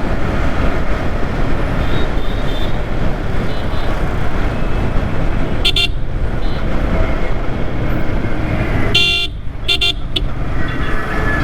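Steady wind and road noise from a motorcycle ride at speed, with short vehicle-horn honks about six seconds in and twice more between nine and ten seconds in.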